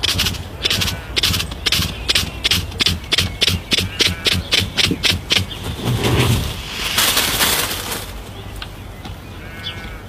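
Male Cabot's tragopan in courtship display: a quickening run of sharp rhythmic wing-beat pulses, about two to three a second, which stops about five seconds in. A louder rushing hiss follows as the bird rears up with its lappet spread.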